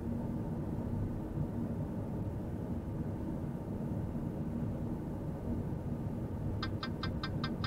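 Steady low rumble of a car driving, road and engine noise with a faint hum. Near the end comes a quick run of about six short high beeps, about five a second.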